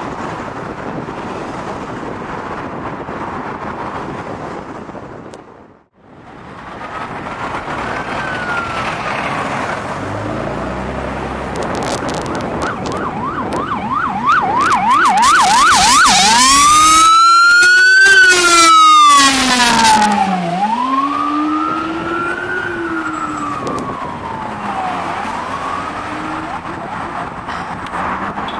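Road traffic noise, then an ambulance's electronic siren approaching and passing: a slow rising-and-falling wail that switches to a rapid yelp, then back to the wail. It is loudest a little past halfway, as the ambulance goes by.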